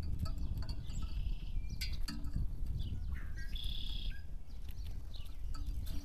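Backyard songbirds calling: short chips and down-slurred notes, with two brief high trills about a second in and just past the middle, over a steady low background rumble.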